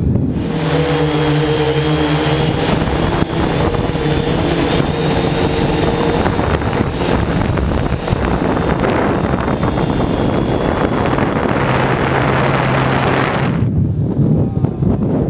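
Electric motors and propellers of a MikroKopter hexacopter running in flight: a steady hum of several pitches over a rushing hiss of air, the hiss dropping away near the end.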